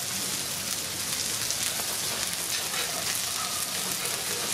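Smashed beef burger patties sizzling steadily in hot oil on a flat-top griddle.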